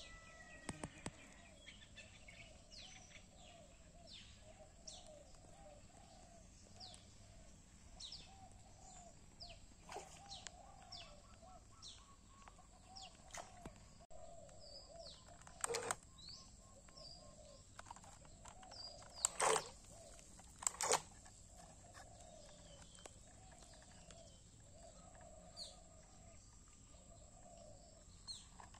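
Birds calling: many short, high chirps falling in pitch, with a lower arched call repeating about once a second underneath. A few sharp knocks cut through, the loudest two about twenty seconds in.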